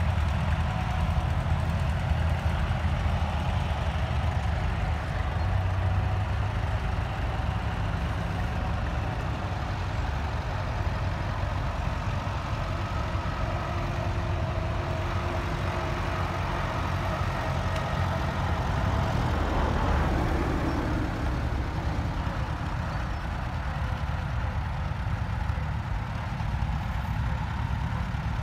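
Several small vintage tractors driving past in a line, their engines running steadily with a low rumble.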